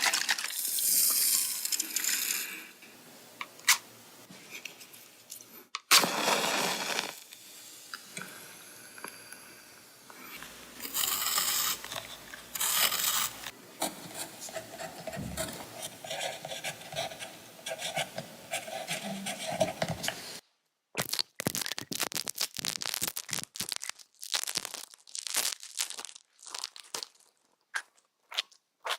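A string of close-miked ASMR trigger sounds. Hissing, scraping noises and a steady humming tone give way, about two-thirds of the way through, to a quick run of crinkly clicks and crackles.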